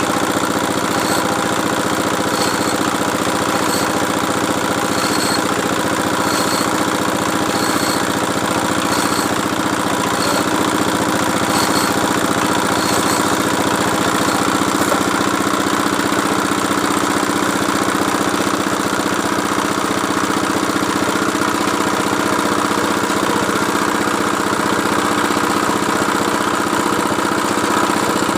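Engine of a borewell drilling machine running steadily at an even speed, with faint high ticks about once a second through the first half.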